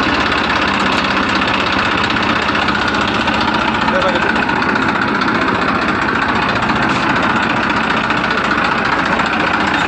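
Tractor engine running steadily, a dubbed-in engine sound effect rather than anything the plastic toys make.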